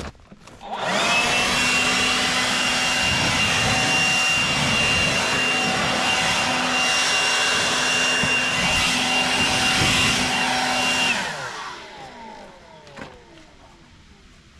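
An electric woodworking machine's motor starts, quickly reaches speed with a steady high whine, and runs for about ten seconds. It is then switched off and winds down with a falling pitch.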